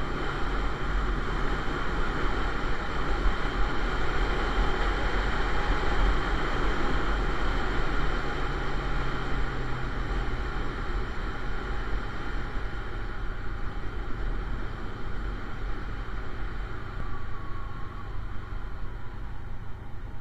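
Motorcycle engine running at a steady cruising speed with wind and road rumble, heard from a camera mounted on the moving bike.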